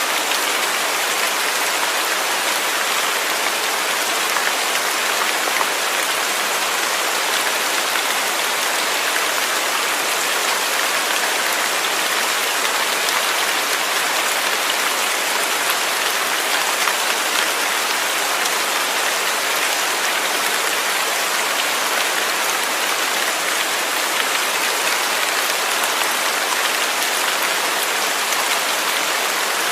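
Steady rain falling on a surface, an even, continuous hiss of many drops.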